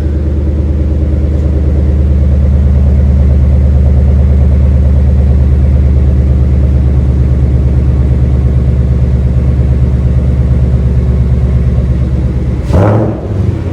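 2019 Mustang GT's 5.0 L V8 idling steadily and loud through an aftermarket valved exhaust whose valves are stuck open. Near the end there is a short blip of the throttle.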